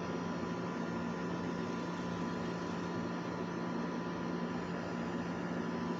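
A steady mechanical hum with a hiss, holding one low tone and a fainter higher tone without change.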